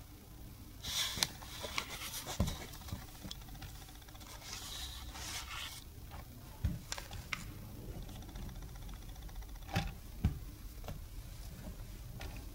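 Dough balls being set down on and lifted off a digital kitchen scale on a stainless-steel table: a few soft knocks and brief scraping, over a faint steady hum.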